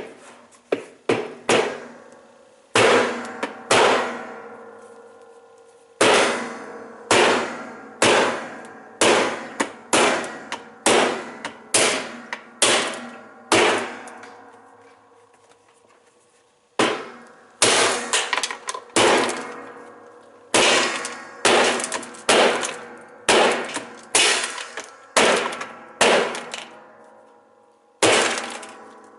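Hammer blows smashing a washing machine washplate that is fused onto the transmission shaft, each strike a loud clang that rings on briefly, about one a second in three runs with short pauses between them.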